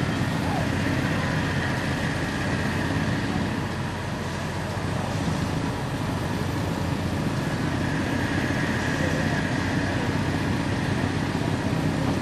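Steady mechanical running noise, like a vehicle or machine, with a faint high whine held throughout.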